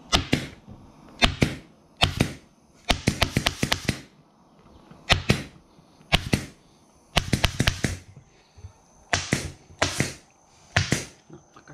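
Staple gun firing stainless steel staples through upholstery material into a plywood panel: about a dozen sharp shots, some single and some in quick runs, with the densest run about three to four seconds in.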